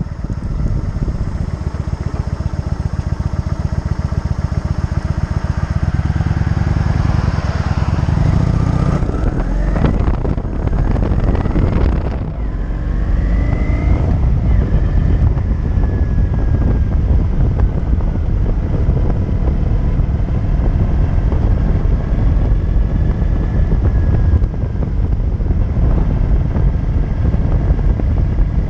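Motorcycle engine pulling away and accelerating, climbing in pitch over the first several seconds with a couple of gear changes around ten seconds in. After that, steady wind noise on the microphone covers most of the engine at road speed.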